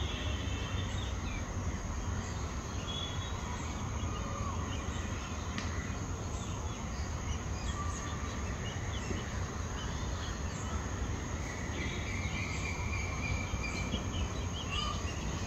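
Outdoor ambience: a steady high insect drone, with scattered short bird chirps that come more often near the end, over a steady low rumble.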